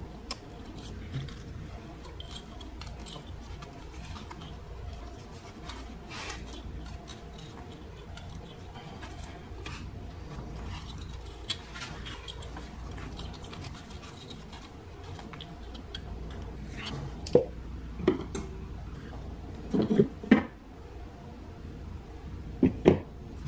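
Plastic clicks and rattles of ignition coils and their electrical connectors being unclipped and handled on a Volkswagen 1.4 L turbo engine. Several louder sharp knocks come in a cluster near the end.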